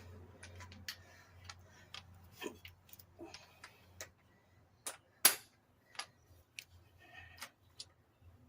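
Scattered metal clicks and knocks from mower blades and deck hardware being handled and set in place, the loudest knock about five seconds in.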